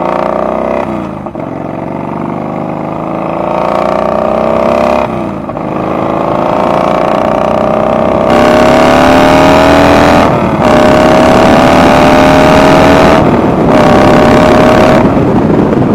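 Yamaha Bolt's air-cooled V-twin running loud through an unbaffled homemade slip-on exhaust, with only the headers giving back pressure. It accelerates through the gears: the pitch climbs in each gear and dips briefly at each of several shifts.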